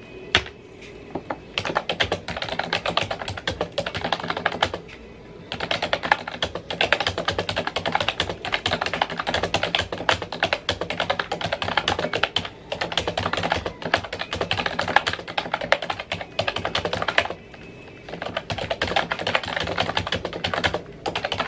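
Fast typing on a computer keyboard: a dense run of key clicks in bursts, with a few short pauses.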